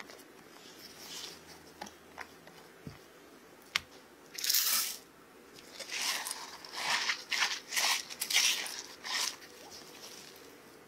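Silicone spatula stirring and folding thick cream-cheese batter with crushed Oreo in a glass bowl. A few faint taps come first, then one strong scraping stroke about four seconds in and a run of quicker strokes, roughly two a second, in the second half.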